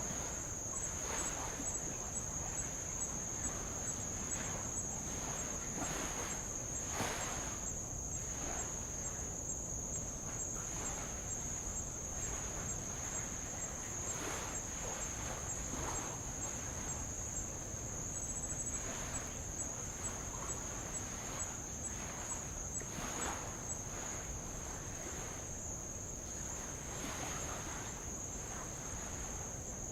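A steady, high-pitched insect chorus, with light waves lapping and splashing against old lava rock every second or two.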